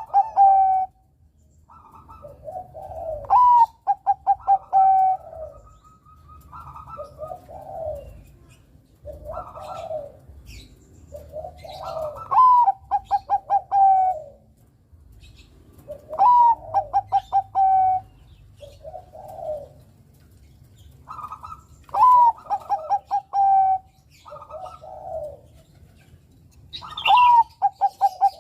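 Zebra dove (perkutut, Bangkok-bred line) singing: about six song phrases, one every four to five seconds, each a rising note followed by a quick run of short cooing notes. Softer, lower coos fall between the phrases.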